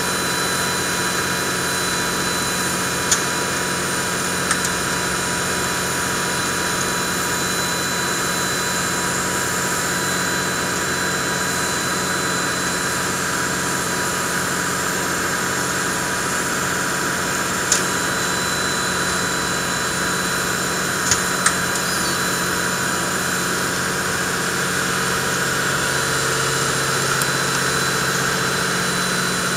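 Japanese JNR Class C57 steam locomotive C57 1 standing with steam up: a steady hiss of escaping steam with a constant hum and whine underneath, and a few sharp clicks about 3, 18 and 21 seconds in.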